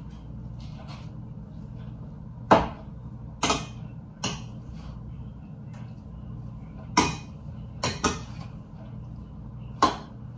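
Metal spoon knocking against a stainless steel pot while ground beef is stirred: about seven sharp clanks at uneven intervals, the loudest about two and a half seconds in, over a steady low hum.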